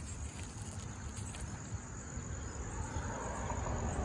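A steady high insect chorus in the garden, over low rustling and handling noise that grows louder near the end as shallots are pulled from the soil.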